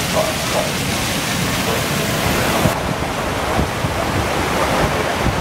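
Steady rush of moving water with wind noise on the microphone. The hiss thins abruptly a little before halfway through, where the treble drops away.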